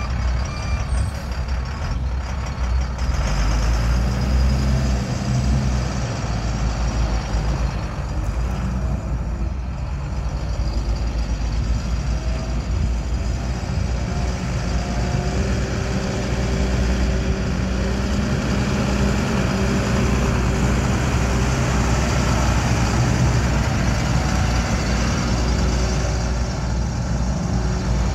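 Diesel engine of a 2005 International 4300 water truck running as the truck is driven around, a steady low drone whose pitch shifts as the throttle changes.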